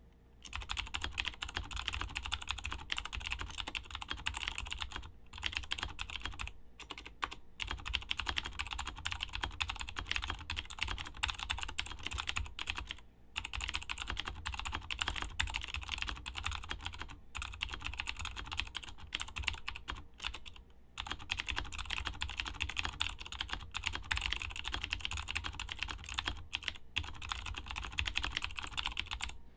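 Fast, continuous typing on a KBTalking Race 75% mechanical keyboard with clicky Cherry MX White switches, each keystroke a sharp click, with a few brief pauses. The click is uneven from key to key, which the uploader puts down to Cherry's factory pre-lube.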